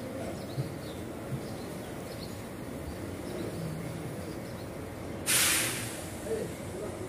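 A short, sharp burst of hiss about five seconds in, over a steady low background rumble.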